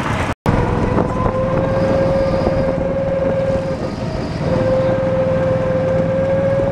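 A go-kart's small petrol engine running under throttle: a steady drone whose pitch climbs slowly, with rushing noise underneath.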